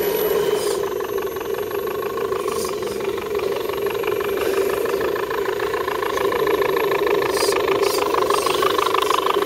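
Electric motors and geartrains of RC scale crawler trucks, whining steadily as they crawl over the trail, with a fast even pulsing in the gear noise.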